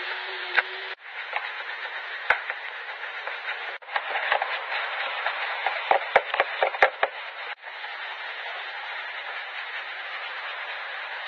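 Detailing brush scrubbing foamy cleaner over car interior plastic trim: a steady scratchy hiss, with a quick run of sharp clicks about six seconds in.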